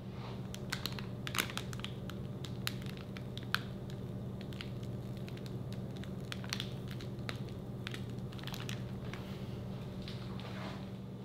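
White fluffy slime squeezed out of a piping bag, crackling and popping with irregular clicks over a steady low hum.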